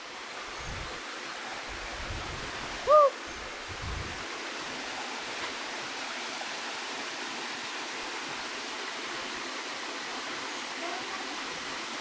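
Waterfall pouring into a pool, a steady rushing hiss. About three seconds in, a person gives one short vocal exclamation over it.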